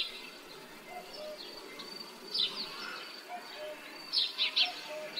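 Village ambience of small birds chirping in quick flurries, loudest about two and a half and four seconds in, over a steady low background noise, with a soft low two-note call repeating every second or so.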